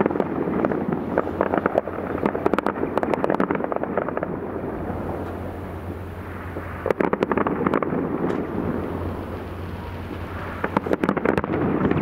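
Fireworks display: aerial shells bursting with rapid crackling and popping, dense for the first few seconds, thinning out, then fresh volleys of sharp bangs about seven seconds in and again near the end.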